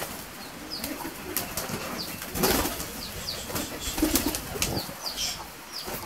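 Domestic pigeons' wings flapping in irregular flurries, the loudest about two and a half seconds in and another near four seconds.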